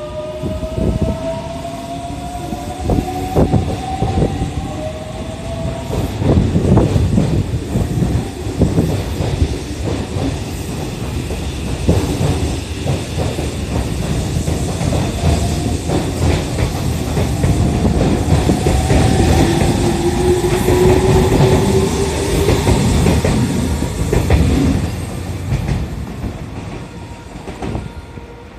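Electric commuter trains running alongside the platform at close range: wheels clattering over rail joints, with a slowly rising motor whine as the trains pick up speed. The clatter fades near the end as the last train pulls away.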